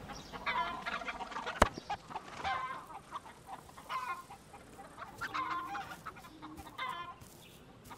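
Chickens clucking, with a string of short calls through the whole stretch and one sharp click about one and a half seconds in.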